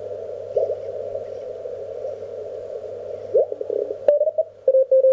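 Elecraft K1 transceiver's receiver audio while tuning the 17-meter amateur band: a hiss of band noise through a narrow CW filter, with signals sweeping quickly in pitch as the dial turns past them. About four seconds in, a Morse code (CW) signal settles in as a keyed tone.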